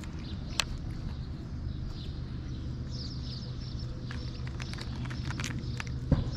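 Cat eating from a plastic food tray: small irregular chewing clicks, with a sharper knock near the end, over a low steady rumble.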